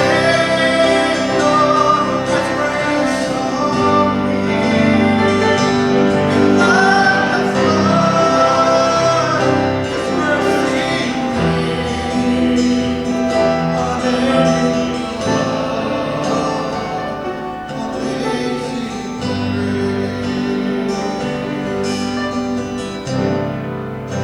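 A worship song sung with instrumental accompaniment, the singing carried over sustained instrument notes.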